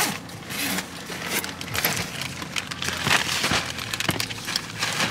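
Plastic crisp packet crinkling and rustling in a toddler's hands, in quick irregular crackles.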